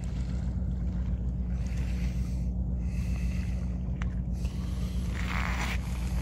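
Steady low mechanical drone made of several held low tones, with a brief rustle near the end.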